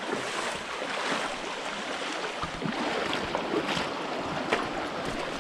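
Running water with irregular splashes throughout.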